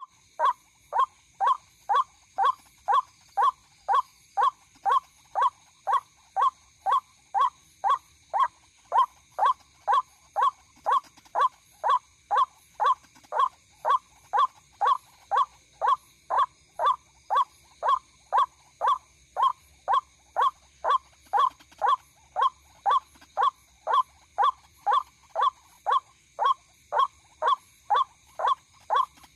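White-breasted waterhen call, a short note repeated evenly about twice a second without a break, played as a lure recording.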